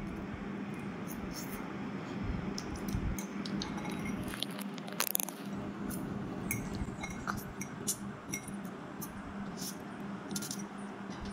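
Metal fork clinking and scraping against a ceramic plate while noodles are eaten, in irregular light ticks with a brief cluster about four to five seconds in, over a steady low hum.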